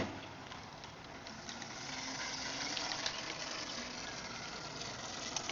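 Faint, steady hiss with a few light clicks and taps as the clutch cover is worked off a trials motorcycle engine's crankcase.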